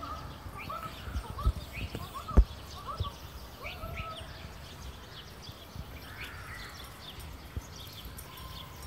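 Birds chirping in short rising calls, several a second at first and sparser after about four seconds, over a low wind rumble on the microphone. A sharp thump comes about two and a half seconds in, with a softer one a second before it.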